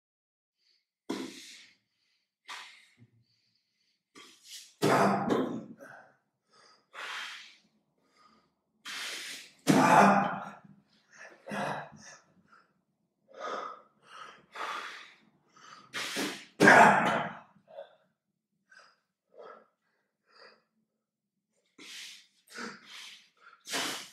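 A man's breathing and mouth noises made while he signs: sharp exhalations, puffs of air and short breathy vocal sounds in irregular bursts, with silent gaps between them and no words.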